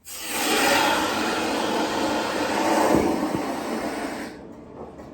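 Water rushing out under line pressure through the open sprinkler valve fitting with the valve removed, flushing debris from the line. It starts abruptly, runs steadily and is shut off after about four seconds.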